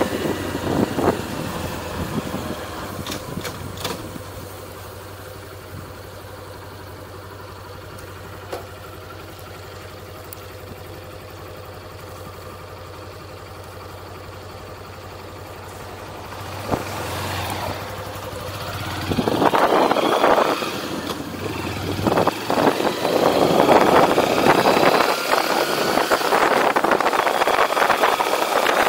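Motorcycle engine heard from the rider's seat: it slows and idles quietly and steadily while stopped, then pulls away a little after halfway, its note rising through the gears as wind noise on the microphone builds.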